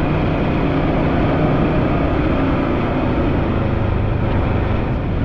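Can-Am three-wheeled motorcycle's engine running steadily with a low, even hum and rumble.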